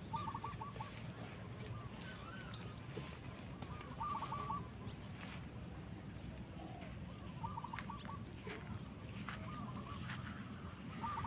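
Faint bird calls in short stuttering bursts, four or five times, over a low steady background.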